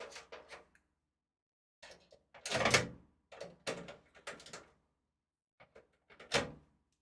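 Knocks, clicks and light rattles of computer hardware being handled in and around a PC case, in four short clusters. The loudest knock comes about two and a half seconds in, with another sharp one near the end.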